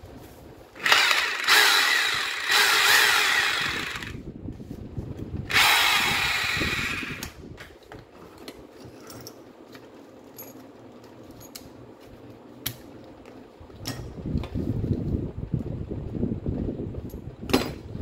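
Makita M8700 rotary hammer motor switched on twice, for about three seconds and then about a second and a half, its sound dying away after each run. Later come lower handling and rustling sounds at the chuck end, with a sharp click near the end.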